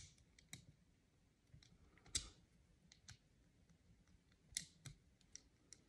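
Faint, scattered small clicks and taps of a double-ended screwdriver bit against a Milwaukee Fastback folding utility knife, as the bit is handled and worked back into its holder in the handle. The loudest click comes about two seconds in, with a few more near the end.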